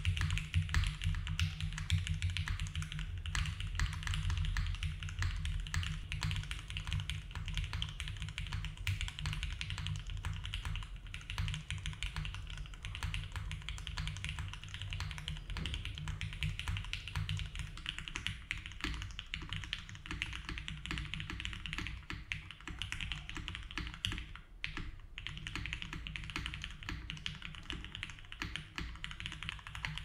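Typing on a Mode Tempo 60% keyboard fitted with Cherry MX Black linear switches and Lattice Blocks keycaps: a continuous, dense run of keystroke clacks. The board has plate foam only at first; about halfway through, case foam is added as well, and the clacks carry a little less low end from then on.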